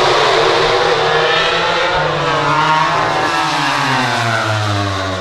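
MotoGP four-cylinder prototype racing motorcycle engine running at high revs, loud, its pitch sliding down over the last couple of seconds as it goes by.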